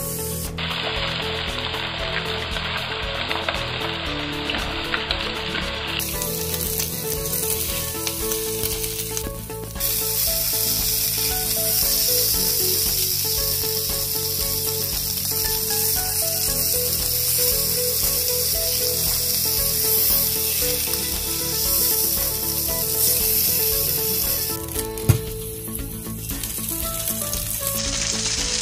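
Whole Pacific saury sizzling in oil on a hot ridged grill pan as they pan-grill, with a single sharp click near the end.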